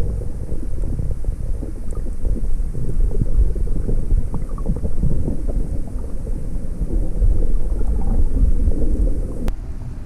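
Muffled, low rumble of water moving over a GoPro Hero 5's microphone underwater, steady but wavering in level. A single brief click near the end.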